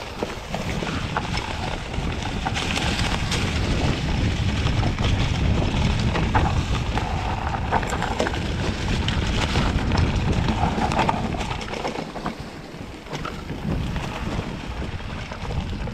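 Mountain bike running down a rough trail: wind buffets the microphone over a steady low rumble, with many scattered clicks and knocks from the tyres and bike over rocks.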